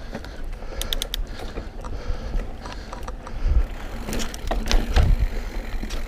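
Mountain bike rolling over a dirt singletrack trail: steady low rumble, with clicking and rattling from the bike. A cluster of sharp clicks comes about a second in, and louder knocks over bumps about four to five seconds in.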